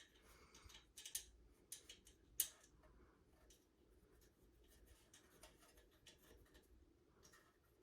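Faint scattered clicks and light scraping of small metal ceiling-fan parts and set screws being handled during reassembly, with one sharper click about two and a half seconds in.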